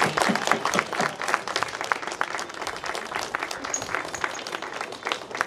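Crowd applauding, the clapping thinning out over the few seconds.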